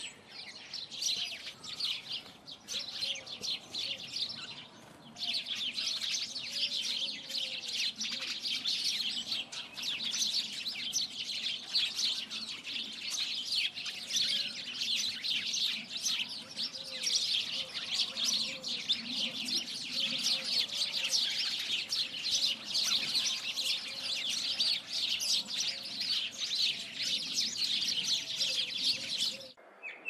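Many small birds chirping densely and continuously, with quick high chirps overlapping throughout and fainter lower notes beneath. The chirping dips briefly a few seconds in and cuts off suddenly near the end.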